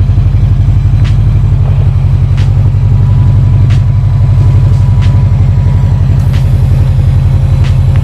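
Subaru WRX STI's flat-four boxer engine running steadily at idle with a deep, even pulsing rumble. A faint click repeats about every second and a quarter.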